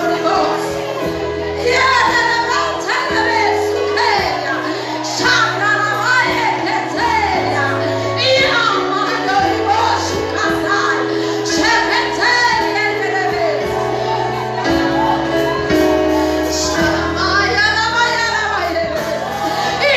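Gospel worship music in a church service: voices singing over instrumental accompaniment with held chords.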